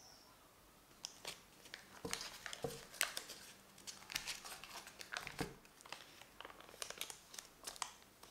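Foil-lined butter wrapper being peeled open and unfolded by hand, crinkling and crackling in quick irregular rustles that start about a second in, with a soft knock about five seconds in.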